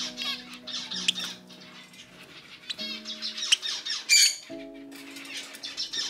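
Budgerigar chirping and chattering in quick little trills, with one louder squawk about four seconds in, over background music of long held notes.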